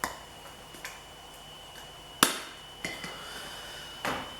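A handful of sharp knocks and clacks from welding gear being handled, about five, the loudest a hard knock about two seconds in.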